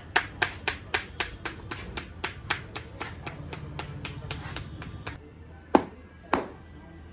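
Barber's hands tapping in a quick, even rhythm of about four sharp strikes a second during a massage; after about five seconds the run stops and two louder, heavier slaps follow.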